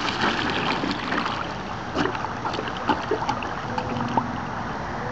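Water sloshing in a shot-through plastic water jug as it is handled, with scattered clicks and knocks.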